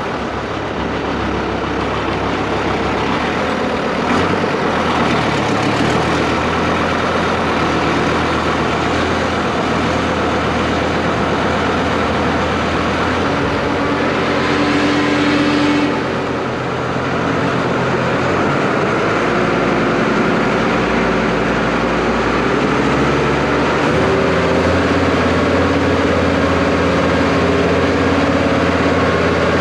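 Small SAME tractor's diesel engine running steadily under load as it pulls and drives a feed mixer wagon discharging the cows' ration. There is a brief surge of noise about halfway through and a shift in the engine's note a few seconds before the end.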